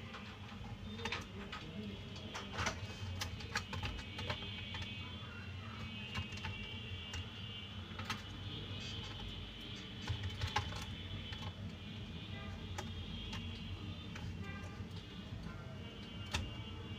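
Scattered small clicks and taps of a screwdriver and plastic and metal laptop parts being handled as a motherboard is worked loose, over a steady low hum.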